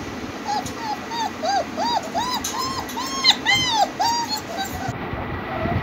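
German Shepherd puppies whimpering: a quick run of short, high-pitched cries, about three a second, that stops after about four seconds.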